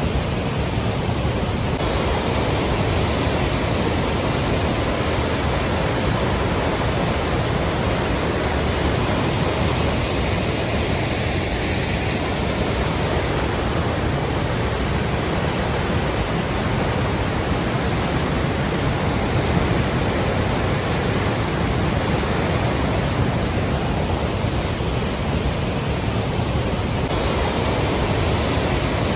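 Flowing water rushing steadily, an even, unchanging hiss.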